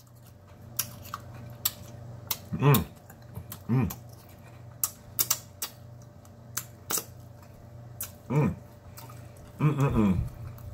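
A man chewing a mouthful of greens and cornbread, with frequent sharp wet mouth clicks and smacks. Four short hummed sounds fall between the bites, over a low steady hum in the room.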